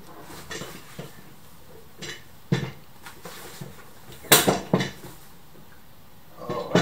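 Knocks and clatter from an office chair's seat and gas-lift piston as the piston is fitted into the star base. There are a few light knocks, a louder clatter about four and a half seconds in, and a last sharp knock just before the end.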